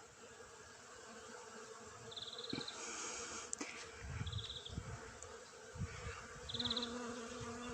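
Bees swarming over a flowering tree, a steady humming drone; a lower buzz from a nearer bee joins toward the end. A short, high, rapidly pulsed call repeats about every two seconds over the hum.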